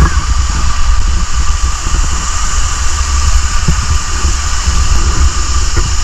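Waterfall water rushing over a natural rock slide and across the microphone as a person slides down through it. It is a loud, steady rush with a heavy low rumble of water buffeting the mic.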